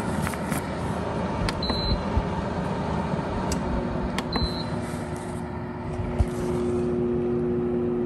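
A dehumidifier's locked-up compressor buzzing as it fails to start: a steady low buzz sets in about halfway through and holds, over the unit's steady running noise.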